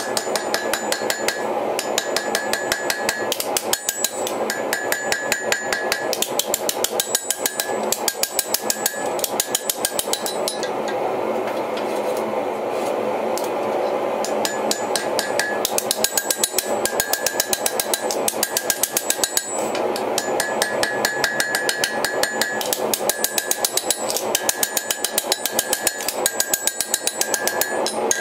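Hand hammer striking a red-hot flat steel strap on an anvil: rapid blows in runs with short pauses, the anvil ringing through each run, as the strap is bent on edge.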